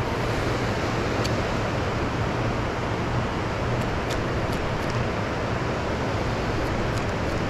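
Steady rushing noise of wind and water around a boat, with a low steady hum underneath and a few faint ticks.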